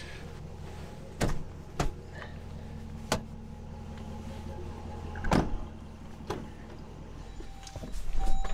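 Knocks and clunks from handling the Dodge Durango's second-row seat and doors, about five in all and the loudest about five seconds in, over a steady low hum from the running SUV.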